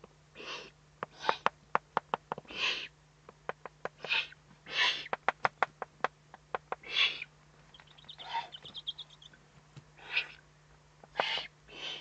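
Eurasian eagle-owl chicks giving repeated raspy, hissing begging calls while being fed, with many sharp clicks in between.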